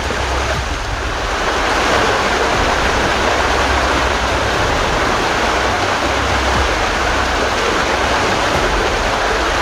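Small rocky forest stream running over stones: a steady rush of water that grows louder about two seconds in, then holds.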